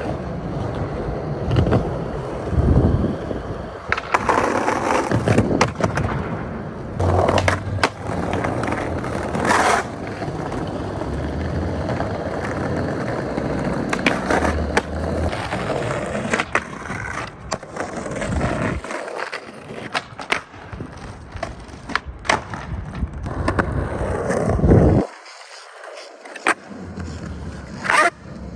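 Skateboard wheels rolling over street pavement, broken again and again by sharp clacks and slaps of the board hitting the ground, with a run of impacts in the first ten seconds and more near the end. The rolling drops away briefly twice.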